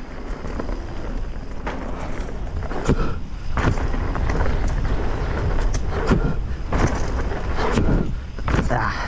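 Mountain bike riding down a dirt flow trail: wind rushing over the microphone and tyres rumbling on the dirt, with a series of sharp knocks and rattles from the bike as it hits bumps.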